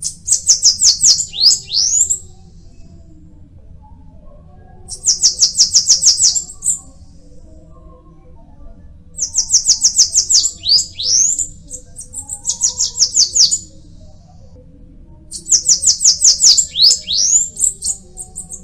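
Bananaquit singing: five bursts of a rapid, high-pitched string of short notes, each ending in a few down-slurred notes, repeated every few seconds.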